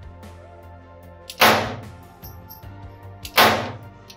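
Two .32 ACP pistol shots from a CZ 70 (Vzor 70), about two seconds apart, each a sharp crack with a short echoing tail.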